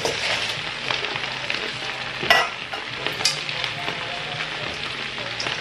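Chopped cabbage sizzling and crackling as it fries in bacon grease in a pot, with a few sharp clicks or knocks; the loudest comes a little over two seconds in.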